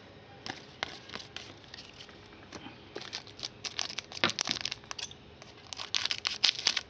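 Foil trading-card pack wrapper crinkling and crackling as it is handled, in irregular bursts of small crackles that are busiest about three seconds in, around four and a half seconds, and near the end.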